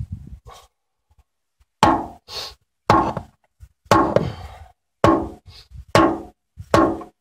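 Repeated hard blows on a knife, about one a second, each ringing briefly.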